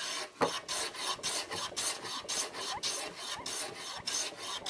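Hand plane shaving wood in quick, short strokes, about three a second, the blade hissing across the board. It is taking shavings off a rail to fit its tenon into a housed mortise.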